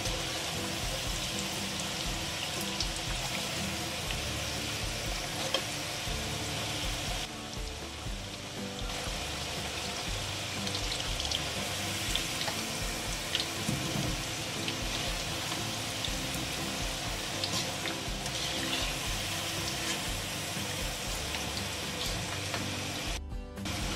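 Whole potatoes deep-frying in hot oil: a steady sizzle with scattered small crackles as the oil bubbles around them. The sound cuts out briefly near the end.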